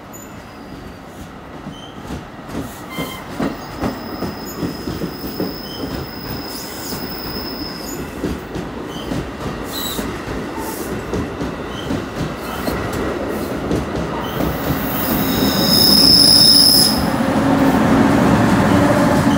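NJ Transit multilevel commuter train rolling past, its wheels clicking in a steady rhythm over the rail joints with a high-pitched wheel squeal. It grows louder toward the end as the ALP-46 electric locomotive pushing at the rear goes by, adding a lower steady drone and a sharper squeal.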